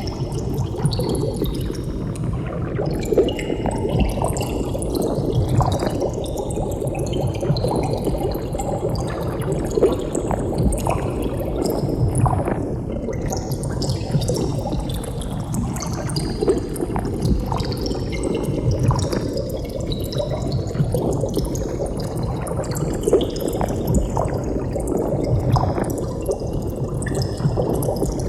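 Water bubbling: a steady stream of bubbles gurgling, with many small irregular pops and plops.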